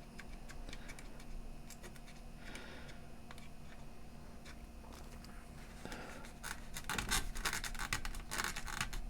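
Light scratching and small clicks from hands handling the opened portable CD player and its freshly oiled switches. The clicking becomes much busier and louder about six or seven seconds in.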